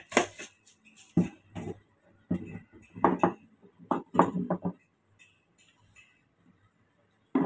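Kitchen utensils and spice containers clinking and knocking as spices are added to a mixing bowl: a quick run of sharp taps and clatters over the first four or five seconds.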